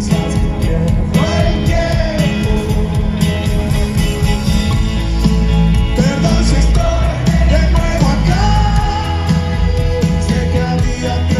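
Rock band playing live with a sung lead vocal over guitars and drums, heard from the crowd with very heavy, booming bass.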